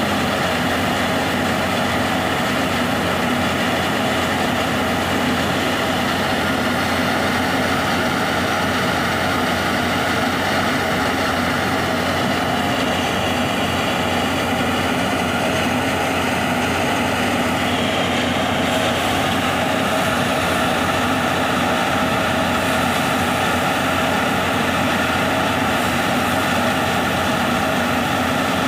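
A tractor-driven threshing machine running steadily under load, its engine and drum making a continuous, even drone.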